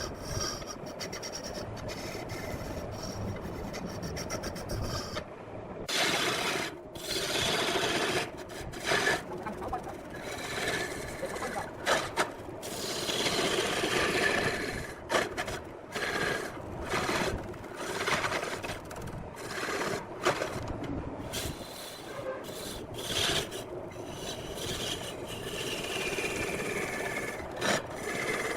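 Wood being worked on a spinning lathe: a continuous rasping scrape that rises and falls in uneven surges, with short sharp scrapes throughout.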